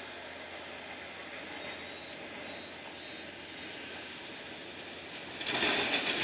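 Jet engines of a Boeing 787 airliner rolling on the runway: a steady distant engine noise that, about five seconds in, suddenly swells much louder.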